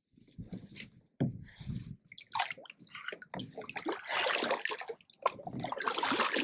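Kayak paddle strokes: the blades dipping, pulling and splashing through the water, with drips falling from the raised blade. A few low knocks come in the first two seconds, before the splashing starts.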